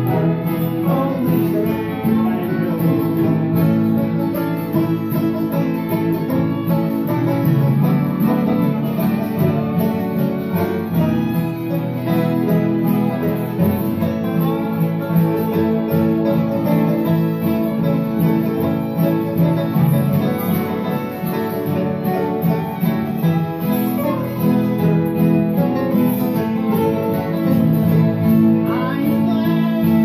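Acoustic country jam with several acoustic guitars strumming a steady rhythm while fiddles play the tune.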